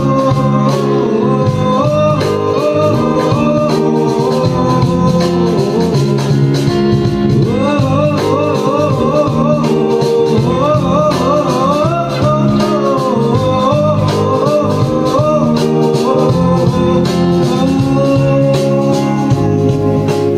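Live band playing a song: five-string electric bass and keyboard, with light percussion, under a wavering lead melody that bends up and down in pitch. The music is loud throughout.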